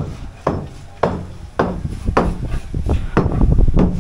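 Hammer blows on a building site: a steady series of sharp knocks about every half second, with a low rumble near the end.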